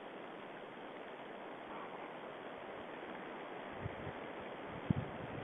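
Steady hiss from an outdoor camera microphone, with a few low thumps starting about four seconds in, one louder than the rest near the end.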